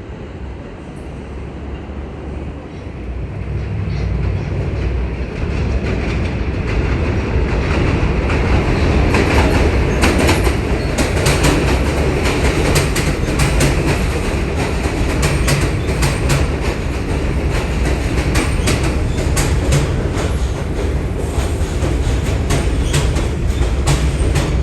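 New York City subway train approaching and running through the station, growing louder over the first several seconds, then a steady rumble with rapid wheel clicks over the rail joints.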